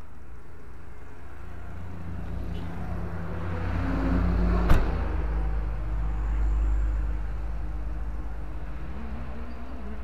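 A motor vehicle passing on the road: a low rumble that swells toward the middle and fades again, with one sharp click near its peak.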